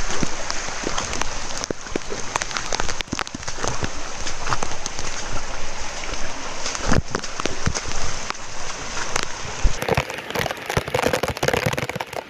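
Heavy monsoon rain and water rushing over rocks in a swollen stream, a dense steady wash with many sharp knocks scattered through it. About ten seconds in the sound changes to the closer rush of a torrent churning over rocks.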